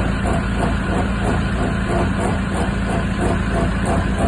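Hyundai Starex running with a steady engine hum and a rhythmic rubbing noise that repeats about once a second with the wheel's rotation. It is a foreign noise coming from a wheel hub.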